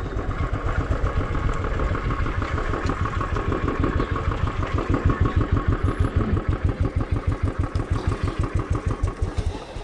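Motorcycle engine running steadily at low revs with an even, regular beat, which stops shortly before the end.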